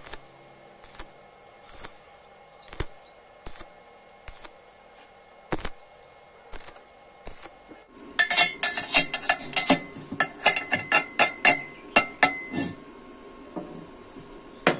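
Thin-walled square steel tubing being stick-welded: a faint arc crackle with scattered pops for about eight seconds. Then comes a quick run of sharp, ringing metallic clinks and taps on the steel tube, about four a second, which stops about four seconds later.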